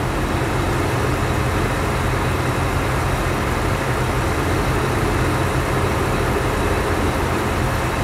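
Heavy vehicle engine idling steadily, a constant low rumble with a hiss over it.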